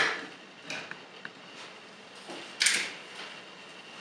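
Hard plastic action figures handled on a tabletop: a sharp knock as a figure is set down, a few light plastic clicks, and a brief scraping rustle a little past halfway.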